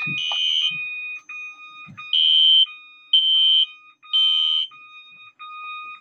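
Fire alarm going off, a System Sensor 2400 smoke detector set into alarm through its test hole: a steady high-pitched tone broken by brief gaps. Over it, an alarm horn sounds in louder half-second blasts, three in a row about a second apart, after a first blast at the start.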